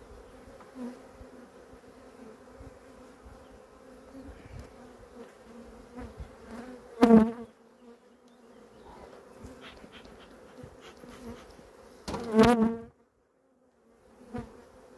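Honeybees buzzing around an open hive, a steady hum, which swells loudly twice, about seven seconds in and again past twelve seconds. The sound cuts out for about a second near the end.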